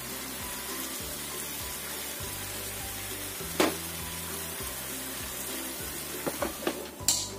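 Chicken and thick soy-sauce marinade sizzling in a non-stick grill pan over low heat, with a spatula knocking against the pan once about halfway through and a few times near the end. Background music with steady bass notes plays underneath.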